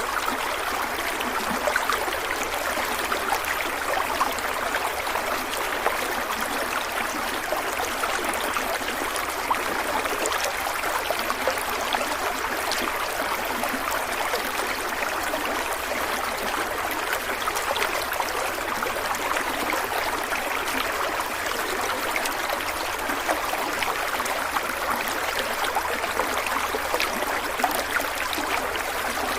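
Stream water running steadily over rocks, a constant rush with fine splashing and trickling.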